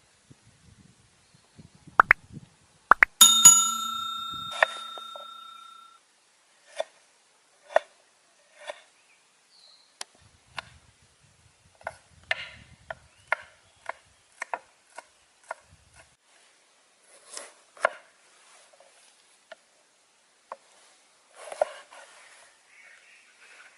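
A metal cooking vessel or utensil struck once about three seconds in, ringing out with clear tones for nearly three seconds. Before it come two sharp clicks, and after it scattered light clicks and knocks of cooking gear.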